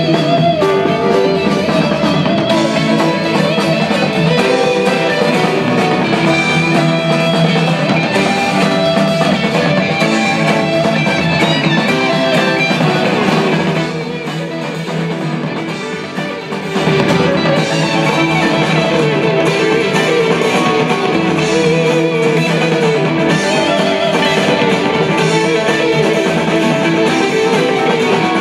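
Rock music with guitar and drums, played through a BRZHiFi class D amplifier as a sound test. It dips to a quieter passage about halfway through before returning to full level.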